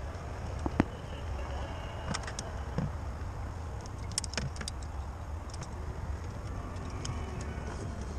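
Rope access hardware, carabiners and descender, clicking and clinking a few times, the sharpest about a second in and a cluster around the middle, over a steady low rumble.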